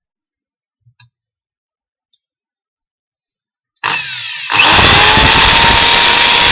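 Bench drill press switched on about four seconds in, its motor whining up to speed, then the bit drilling into a wooden block with a loud, steady noise.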